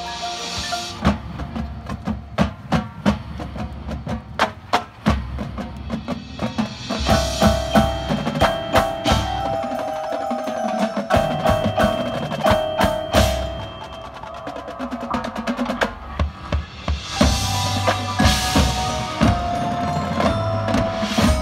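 High school marching band playing its field show, percussion to the fore: drum strikes and rolls with front-ensemble mallet percussion over held chords, swelling loudly twice.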